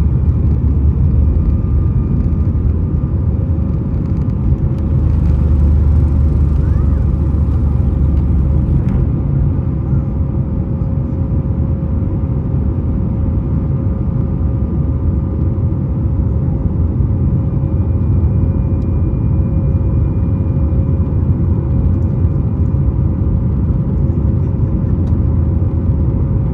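Cabin noise of a Boeing 737-9 MAX in flight: steady rumble of the CFM LEAP-1B jet engines and airflow, with a steady engine hum. A louder stretch of rumble and hiss runs from about five to nine seconds in and ends abruptly.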